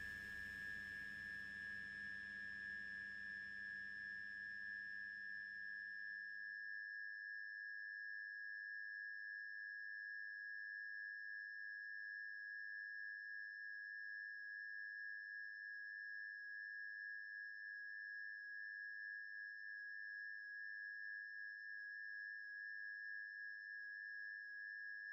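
A steady high-pitched ringing tone, with a fainter, higher tone above it. The background hiss and hum underneath fade out about seven seconds in, leaving the tone on its own.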